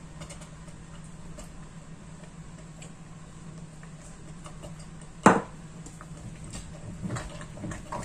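Grated cheese being sprinkled by hand from a small glass bowl into a pot of risotto: faint scattered ticks and rustles over a steady low hum, with one sharp knock a little past five seconds in, as the bowl or utensil strikes against the pot.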